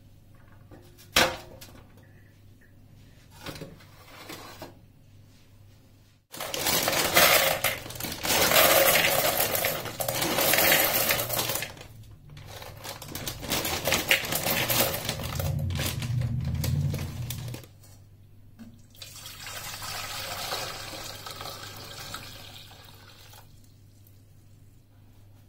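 A glass baking dish set down on a metal oven tray with a single clink about a second in. Then dry farfalle pasta pours from a bag into a plastic bowl, rattling loudly, and later hot water is poured into a stainless steel pot, more softly.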